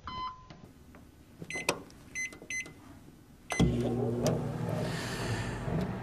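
Admiral microwave oven: several short keypad beeps as the time is entered, then a click about three and a half seconds in as it starts, followed by its steady running hum.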